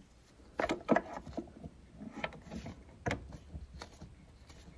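A few separate metallic clicks and knocks from a spanner working on the back nut of a basin tap, with fainter ticks in between.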